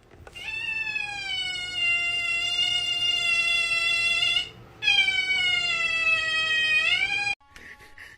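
Cat giving two long, drawn-out yowls, each held at a steady pitch for several seconds; the second rises at the end.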